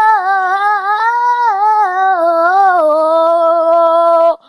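A high child's voice singing one long wordless line, wavering in pitch and stepping downward, then breaking off abruptly near the end.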